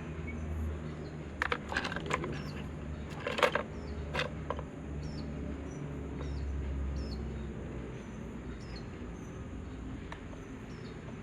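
Hand-work handling noise: a few clusters of sharp clicks and scrapes in the first four and a half seconds, over a steady low hum. Faint, short high chirps repeat about twice a second in the second half.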